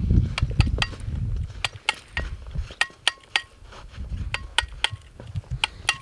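Metal shovel chipping at packed snow and ice, giving a string of sharp, uneven clinks and knocks, some with a short ring. A low rumble of wind on the microphone runs under the first second and again around four seconds in.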